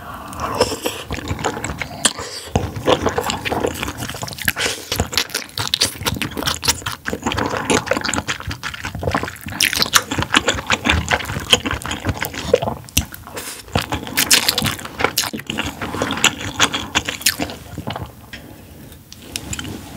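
Close-miked wet eating sounds from squid intestine soup: chewing with liquid in the mouth, making dense, irregular squelches and clicks with dripping broth.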